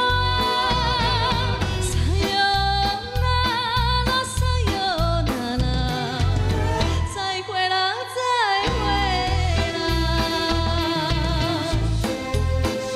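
A woman singing a Taiwanese Hokkien song in enka style, with wide vibrato, over a band backing track with a steady bass beat. Just past the middle the beat drops out for about a second while her voice glides, then the backing comes back in.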